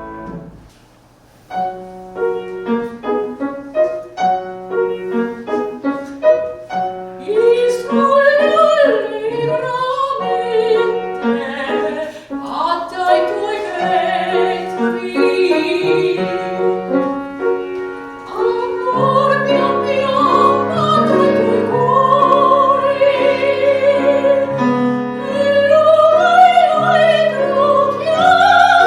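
After a brief pause, a piano starts a song. A soprano's voice enters with vibrato about seven seconds in and sings over the piano accompaniment.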